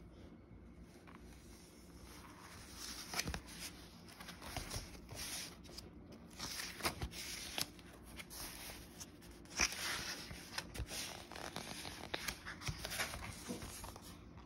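Paper pages of a book rustling and flicking as they are turned by hand, a string of irregular short crinkles and ticks.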